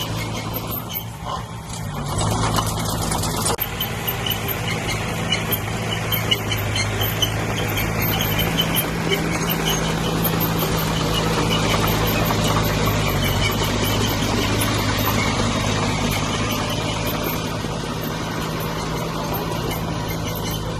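Heavy diesel engine of earth-moving machinery running steadily. It gets louder about two seconds in, with a burst of clatter lasting a second or so.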